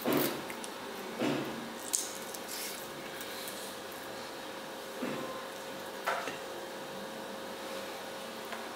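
Raw marinated coot halves being pushed onto metal skewers by hand: a handful of short wet squishes of meat and light clicks of the steel skewers, over a faint steady hum.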